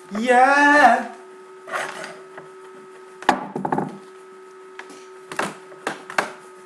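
One pitched vocal sound lasting about a second, rising then falling, followed by a scatter of knocks and short clatters on a hard, wooden-sounding surface. Under it runs a steady electrical hum.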